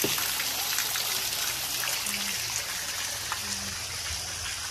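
Water pouring steadily from stone water spouts and splashing below.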